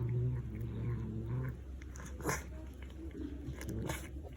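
Domestic cat giving a low, steady growl over its food, a food-guarding warning to another cat; the growl stops about a second and a half in. Two sharp clicks follow later, about a second and a half apart.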